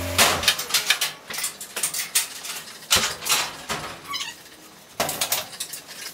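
A compact SUV's engine idling cuts off right at the start, followed by a string of clicks, knocks and rustling as the driver climbs out through the open door. Two louder thumps come about three and five seconds in.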